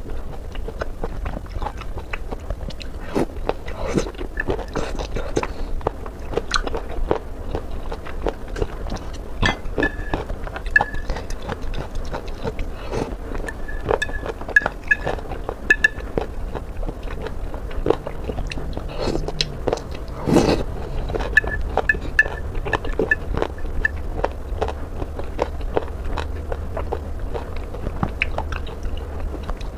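A person biting and chewing food, with many irregular short clicks and smacks of the mouth throughout.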